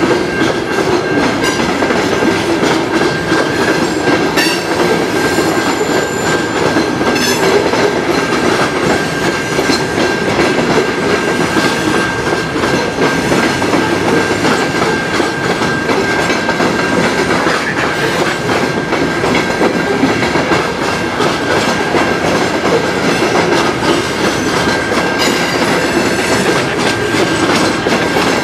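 Freight train of covered hopper and grain cars rolling steadily past, its wheels clacking over the rail joints. A thin steady high tone runs under the rolling noise.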